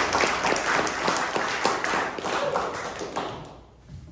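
Applause: many hands clapping, which dies away about three and a half seconds in.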